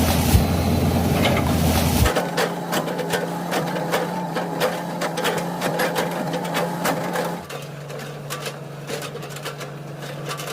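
Excavator running, with a heavy engine rumble that cuts off abruptly about two seconds in. A steadier mechanical hum with rapid clicking and rattling follows, and it gets quieter about three seconds before the end.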